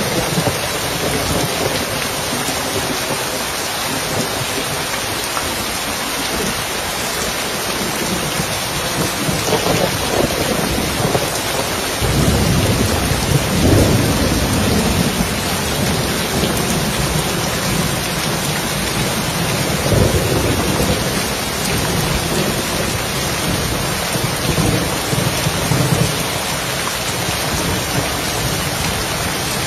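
Steady rain on a roof with thunder rolling. A deep rumble breaks in sharply about twelve seconds in and rolls on for several seconds, with fainter rumbles a little before and after it.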